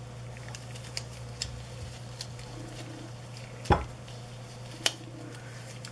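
Gloved hands unwrapping a wet gauze bundle around a dyed egg and working off its rubber band: faint handling noise with a few short sharp clicks, the loudest a little past halfway and about a second later, over a steady low hum.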